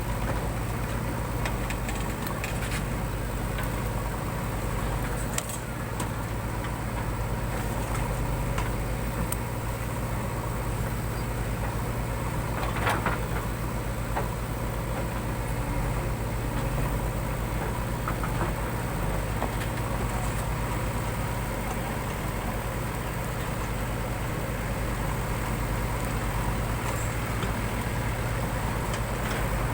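JCB 3DX backhoe loader's diesel engine running steadily, with a few brief knocks, the clearest about thirteen seconds in.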